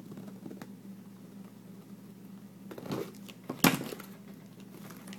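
Packaging being handled and pulled at while a parcel is being opened, with one sharp click or tap about three and a half seconds in, the loudest sound, and a faint steady hum underneath.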